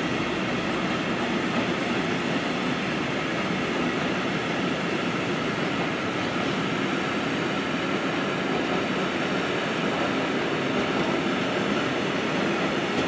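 Empty flat wagons with upright stakes, part of a freight train, rolling steadily past, their wheels running on the rails with a continuous even noise.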